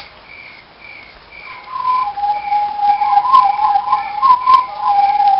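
A sharp click, then about a second and a half in a steady whistling tone starts and is held, with a second, higher wavering whistle tone coming and going above it. Faint short high blips repeat about twice a second underneath.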